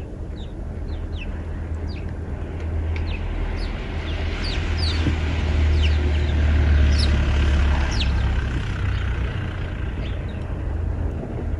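Sparrows chirping, a scatter of short, falling chirps repeating on and off. Under them a low rumble swells to its loudest about halfway through and then eases off.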